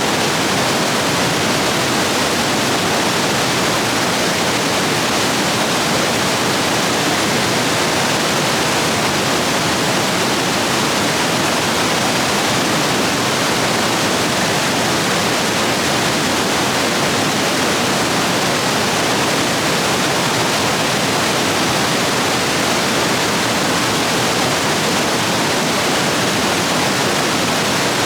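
Rapids rushing steadily over rocks, the stream swollen after heavy rain.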